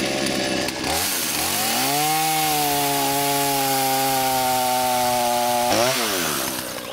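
Petrol chainsaw sawing through a wooden log. The engine pitch dips as the chain bites into the wood, then holds steady under load. Near the end it rises sharply as the cut breaks through and falls away as the throttle is released.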